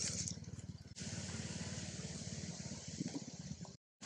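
An engine running steadily, a fast even low pulsing with a hiss over it. The sound changes abruptly about a second in and cuts out briefly near the end.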